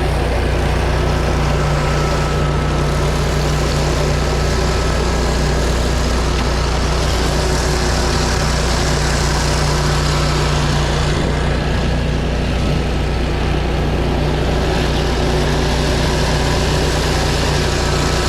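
Pressure-washer engine running steadily under the continuous hiss of high-pressure water spraying from a 24-inch surface cleaner working over pavers.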